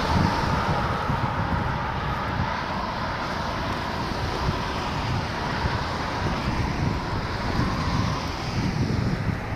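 Wind buffeting the microphone in uneven low gusts over a steady hiss of road traffic.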